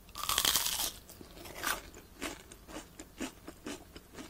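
A bite into crispy deep-fried shrimp toast (menbosha) with a rice-bread crust. A dense crunch lasts about the first second, followed by scattered crunches of chewing.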